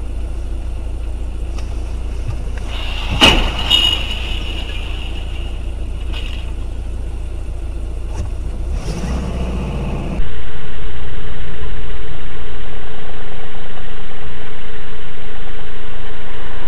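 Steady low drone of a car's engine and road noise as recorded by a dashcam, with a sharp knock about three seconds in and a few fainter knocks later. About ten seconds in it cuts abruptly to a much louder, steady rumble.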